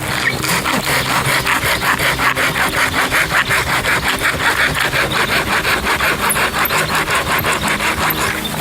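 Hand saw cutting through wood in quick, even back-and-forth strokes, about five a second, stopping shortly before the end.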